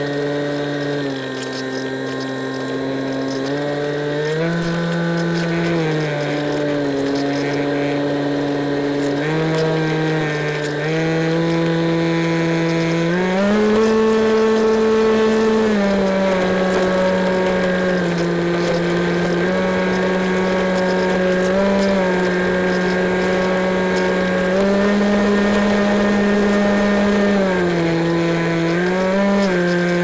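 Electric motor and pusher propeller of an EasyStar RC plane in flight, heard from on board: a steady buzzing drone whose pitch steps up and down many times as the throttle is changed, over a faint rush of air.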